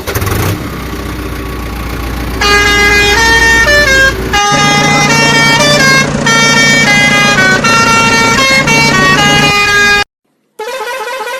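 A low engine rumble, then a vehicle's musical horn playing a tune over the engine's drone, which stops abruptly, followed by a short horn blare near the end.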